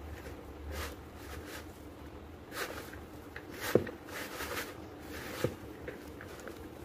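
A hand tossing and squeezing shredded raw vegetables with dry gram flour and spices in a bowl: soft, irregular rustling and squishing, with two brief knocks, the first near the middle and the second a little later.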